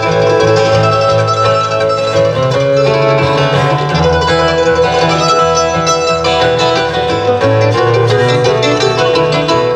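Live acoustic bluegrass instrumental break: mandolin and acoustic guitars picking and strumming together, with no singing.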